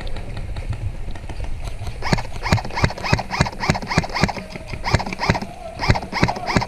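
Footsteps at a quick pace, about two and a half a second, with clothing and gear rustling on each step, starting about two seconds in.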